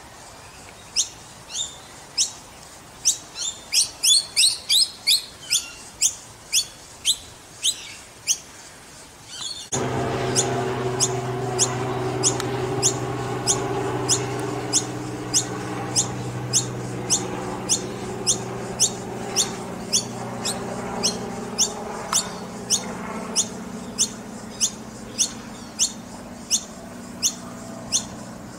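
Noisy miner fledglings calling: short, sharp, high chirps, each dropping in pitch, repeated about twice a second, with several birds overlapping for a few seconds early on. About ten seconds in, a steady low engine-like hum starts underneath and carries on.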